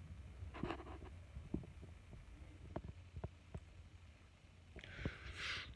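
Quiet handling noise: a scattering of light taps and knocks as plush toys are moved about on a wooden floor, over a faint low hum.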